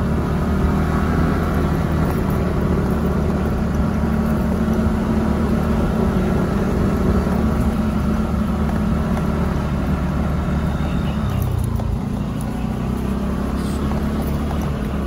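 SYM motorbike engine running steadily as the bike rides up a narrow mountain lane. Its pitch shifts slightly about eleven seconds in.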